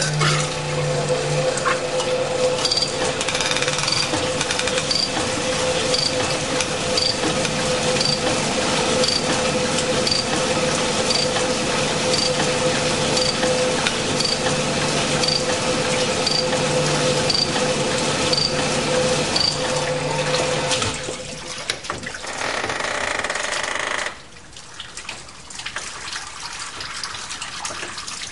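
Gardner Denver cylinder honing machine running with fine stones in a steam engine cylinder, a steady hum under a rushing, liquid-like wash, with a high tick about once a second. This is the finishing pass to improve the bore's surface finish so it seals. The machine's sound drops away a little past two-thirds of the way through, leaving a quieter wash.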